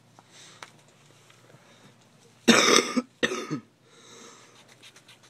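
A person coughing twice in quick succession about halfway through, close to the microphone, after a few seconds of faint handling ticks.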